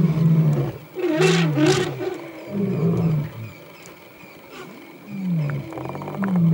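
Lion roaring in a series of deep, short grunts about one a second, each sliding slightly down in pitch, with a pause of a second or two in the middle. Two short noisy crashes come about a second in.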